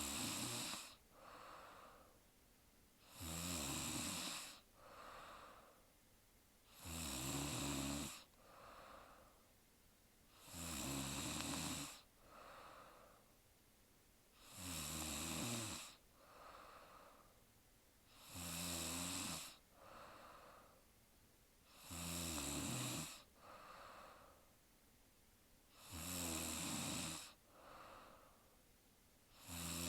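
A woman snoring in her sleep: a loud snore of about a second, coming regularly about every four seconds, each followed by a softer breath.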